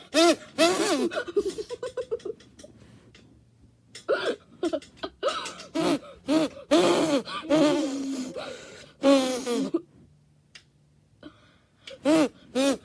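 A child's voice making wordless, breathy gasping and sing-song noises in short bursts, the pitch swooping up and down, with a couple of brief pauses.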